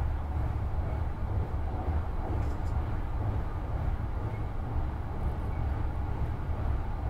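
Marine Liner electric train running at speed across a steel truss bridge, heard from inside the passenger car as a steady low rumble with no change in pace.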